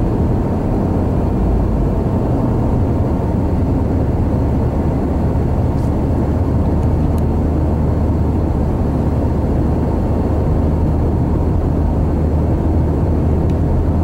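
Car driving at highway speed, heard from inside the cabin: a steady low drone of tyre rumble and engine noise.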